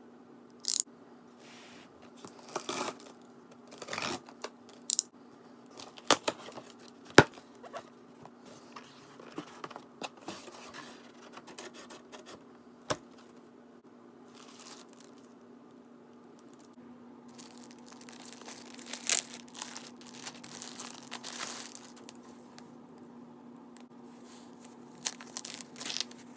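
Packing tape on a cardboard box being slit with a utility knife and torn, in sharp clicks and short rips. Then plastic bags crinkle and rustle as the box is unpacked, and near the end foam wrap is unrolled.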